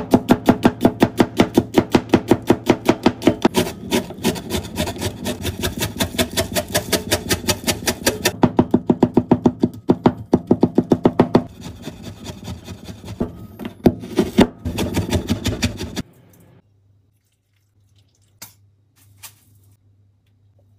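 Kitchen knife chopping fast on a wooden cutting board, a rapid run of strokes at about four to five a second, then looser, uneven strokes. The chopping stops about three quarters of the way in, leaving only a few faint clicks.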